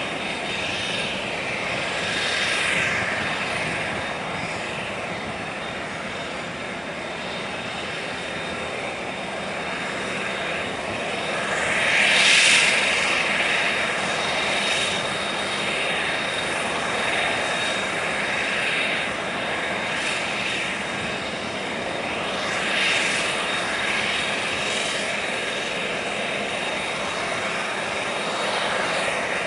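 Aircraft turbine engine running with a steady whine and a thin high tone. It swells and eases every few seconds and is loudest about twelve seconds in.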